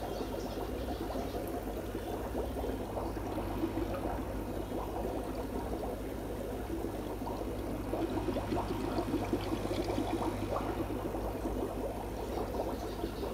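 Aquarium sponge filter bubbling steadily, a dense stream of small air bubbles gurgling and popping, over a steady low hum.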